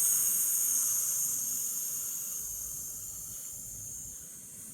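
A woman breathing out in one long, steady "sss" hiss, loudest at the start and fading slowly over about five seconds.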